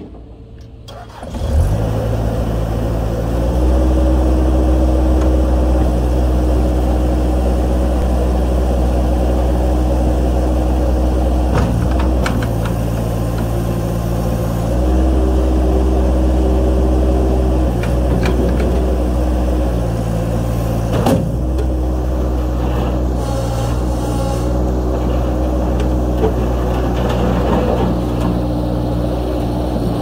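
Bobcat 763 skid steer loader's diesel engine starting about a second and a half in, then running steadily. The engine speed steps up a couple of seconds later and shifts several more times as the lift arms and bucket are worked.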